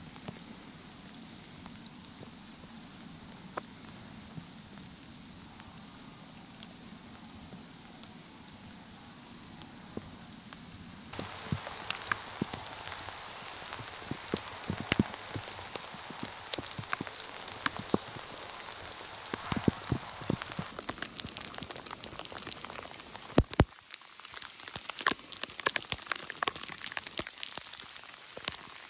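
Rain falling, with sharp single drops tapping close to the microphone. A soft steady hiss at first, then many more drop taps from about a third of the way in.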